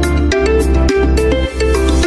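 Background music with a steady beat, melodic notes and deep bass.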